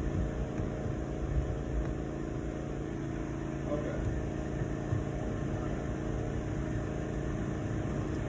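Steady low mechanical hum, like an engine idling, holding even throughout.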